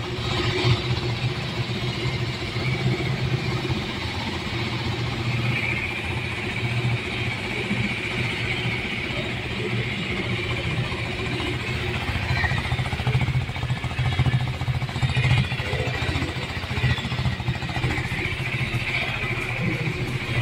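2024 third-generation KTM 390 Duke's 399 cc single-cylinder engine idling steadily.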